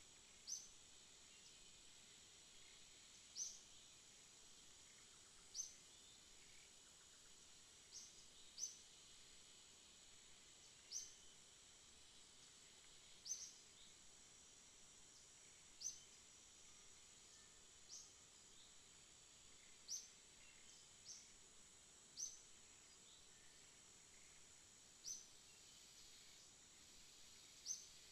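Steady high-pitched insect drone, with a short high chirp repeating about every two seconds.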